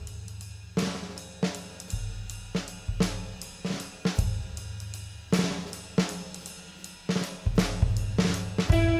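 Rock drum kit played live, with kick, snare, hi-hat and crashing cymbals, over a low bass line that shifts note every couple of seconds: a band's song intro.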